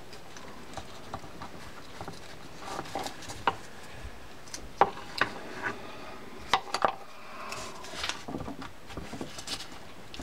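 Light, irregular metallic clicks and taps from small parts inside the open gearbox of an Olympic GVO13 spinning reel as they are handled and fitted, with a few sharper clicks in the middle.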